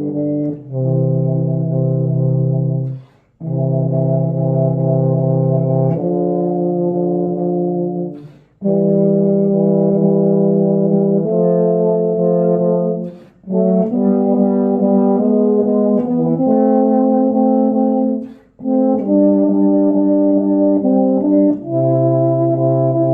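Two euphoniums playing a hymn in two parts, a soprano melody over a bass line, in slow held notes. The phrases break briefly about every five seconds for breath.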